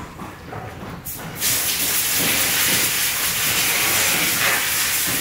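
A loud, steady hiss that comes on suddenly about a second and a half in and holds without change.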